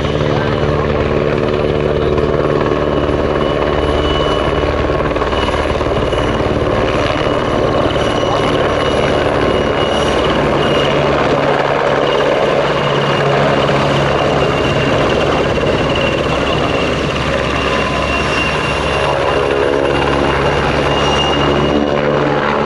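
PZL-Świdnik W-3A Sokół twin-turbine helicopter in flight, its rotor and engines running steadily.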